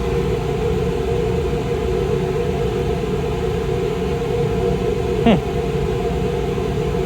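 Steady hum of a fan running, with a brief falling tone about five seconds in.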